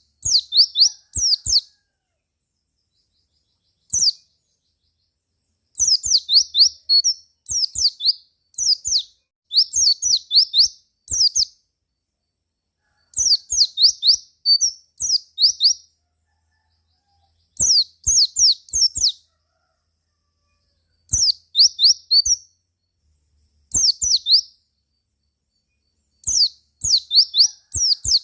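White-eye (pleci) singing: short phrases of rapid, high-pitched, down-slurred chirps, each phrase a second or two long, repeated about ten times with pauses between them.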